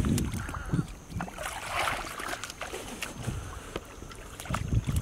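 Water splashing and sloshing, with a burst of hiss about two seconds in, scattered clicks, and wind rumbling on the microphone.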